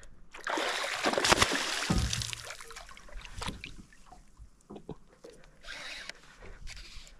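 A hooked bass splashing and thrashing at the surface beside the boat. The splashing is loudest in the first two seconds or so, and smaller splashes follow later.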